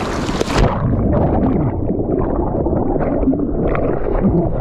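Water splashing, then about half a second in the sound suddenly goes muffled as the camera's microphone goes under the river water: a low, gurgling churn heard from underwater.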